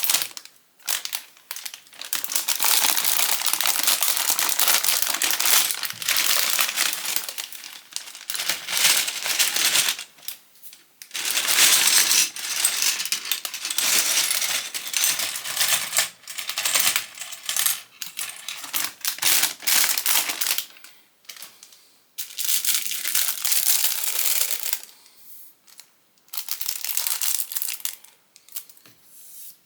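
Small plastic Lego pieces rattling and clattering against each other as they are handled and sifted, in long stretches broken by short pauses.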